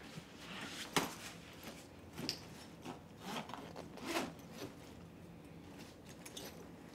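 A fabric backpack being handled, rustling and scraping as objects are pushed into it, with a sharp click about a second in and a few more scrapes over the next three seconds.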